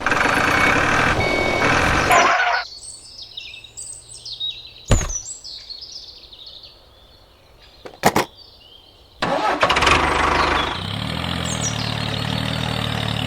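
Tractor engine running, cutting out about two and a half seconds in. Birds chirp through the gap, with two sharp knocks. The engine starts up again about nine seconds in and keeps running.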